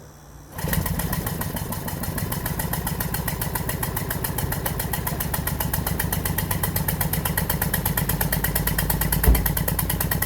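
Toyota Prius Gen 2 1.5-litre engine being spun over by the hybrid system's motor-generator. It starts abruptly about half a second in and keeps a steady, fast pulsing rhythm, with one brief thump near the end. The engine is cranked without firing, with a spark plug out and its injector disconnected, for a spark check.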